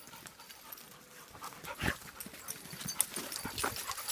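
Footsteps scuffing and crunching through dry fallen leaves on a woodland path, irregular and growing louder about a second and a half in, with a dog panting.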